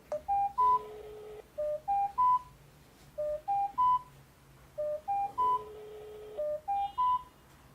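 X9 GSM alarm panel ringing for an incoming call: a three-note rising beep, repeated five times about every 1.6 s. A steady lower ringback tone from the calling phone sounds twice, about 5 s apart.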